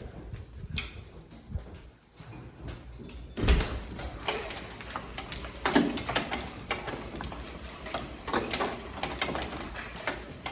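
Hail hitting a house: a dense, irregular clatter of hailstone impacts, sparse at first, then after a heavy thud about three and a half seconds in, a continuous barrage of knocks.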